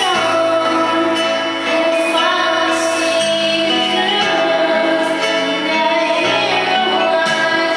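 A woman singing a pop ballad into a karaoke microphone over a karaoke backing track of sustained chords.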